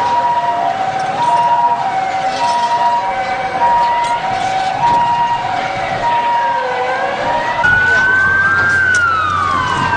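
Emergency vehicle sirens: a two-tone hi-lo siren alternating steadily, with a slower wailing siren under it. About eight seconds in, a louder wailing siren rises and falls over them.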